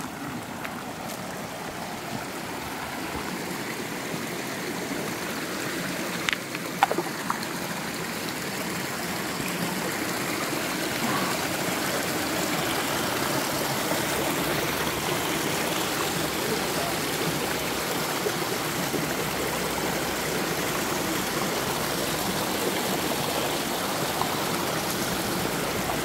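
Shallow mountain stream running over rocks: a steady rush of water that grows a little louder over the first half. A few brief knocks come about six to seven seconds in.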